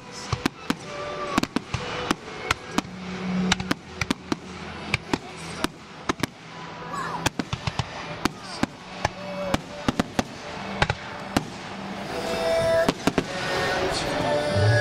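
Aerial fireworks going off in a long, irregular run of sharp bangs and crackles, several a second at times. Music plays faintly underneath and grows louder near the end.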